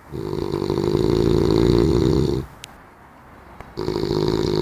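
Big snores drawn in on the breath: a long rattling snore of about two and a half seconds, then after a short pause a second one starting near the end.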